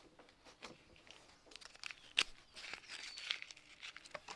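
Scattered light clicks and rustling from hands working on the bar and chain of a Ryobi 40V cordless chainsaw, with one sharper click about two seconds in.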